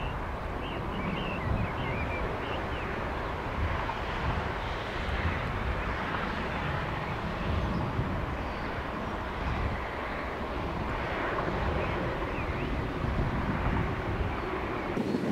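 Airbus A380 jet airliner on approach to land, heard as a steady, distant rumble of jet engine noise, with wind buffeting the microphone.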